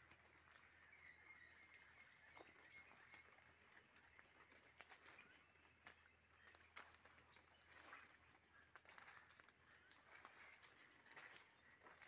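Faint rainforest ambience: a steady high-pitched insect drone, with scattered crackles of footsteps on leaf litter along a forest path.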